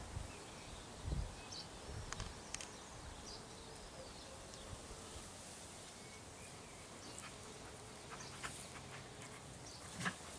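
Quiet outdoor garden ambience: a steady faint hiss with scattered faint high chirps, a soft low bump about a second in, and a few brief clicks.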